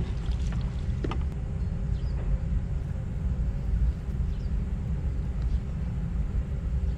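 Low, fluctuating rumble of wind buffeting the microphone outdoors, with a few faint clicks.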